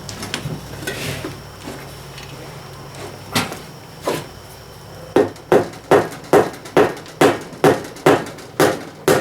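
Hammer blows while a tractor's front tire is being forced off its rim: two single strikes, then a steady run of about ten quick blows, roughly two and a half a second.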